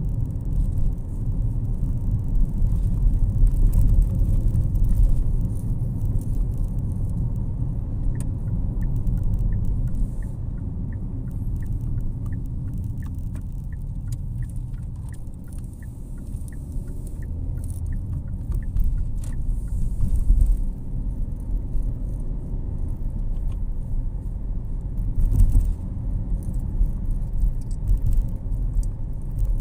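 Car cabin road noise: the steady low rumble of tyres and engine while driving. From about eight seconds in, the turn-signal indicator ticks evenly, about twice a second, for some ten seconds.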